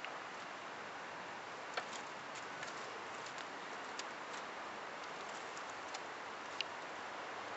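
Quiet outdoor garden ambience: a steady hiss with a few short, high ticks and chirps scattered through it.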